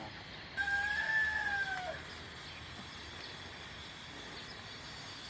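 A rooster crowing once: a single call of about a second and a half, its pitch rising slightly and then dropping off at the end.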